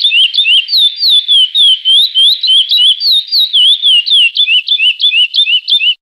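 Curió (lesser seed finch) singing the classic 'Praia' song: a fast, unbroken run of clear whistled notes, each sliding up or down, several a second. The song cuts off abruptly at the end.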